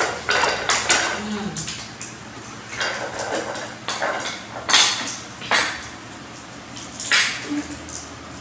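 Dishes and utensils clinking and clattering in an irregular run of sharp knocks, the loudest spread through the middle and near the end.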